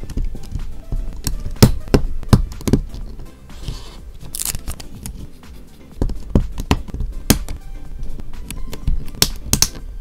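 Sharp plastic clicks and taps of LEGO bricks being pressed together, coming irregularly in small clusters, with a brief rustle of parts near the middle.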